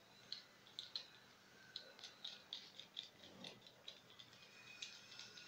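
Faint, irregular light clicks and taps as hands handle the plastic valve top of an automatic chicken drinker and work it free of its string.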